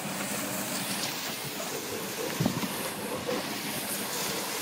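Golf cart driving across a lawn while towing a plastic kayak on a rope: a steady rumbling hiss of the moving cart and the hull sliding over the grass, with a light knock about halfway through.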